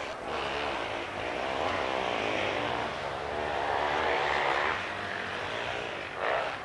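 Engine noise of a passing motor vehicle, swelling for a few seconds and then easing off, with a short louder sound near the end.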